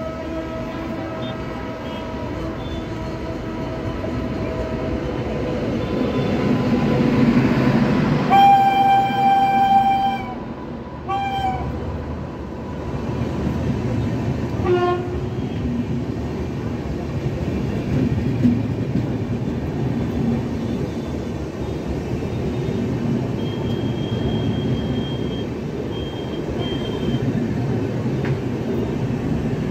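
Express train running with a steady rumble of wheels on track. About 8 seconds in, a train horn sounds one long blast of nearly two seconds, followed by a short toot about a second later and a fainter short toot near 15 seconds. A steadier horn-like tone fades out in the first few seconds.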